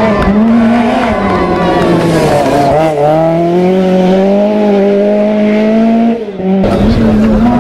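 Lancia 037 rally car's supercharged four-cylinder engine running hard. Its pitch climbs steadily through a gear, then it lifts briefly about six seconds in and pulls again at high revs.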